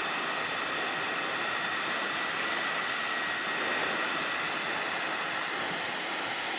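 Heat gun blowing steadily while shrinking heat-shrink tubing over a wiring harness: an even rush of hot air with a faint steady whine.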